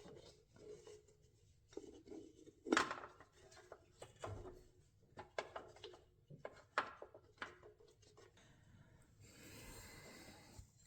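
Faint handling noises of a thin rubber power steering belt being fed up from below and worked into place in a car's engine bay: scattered light clicks and taps, and a longer scraping rub near the end.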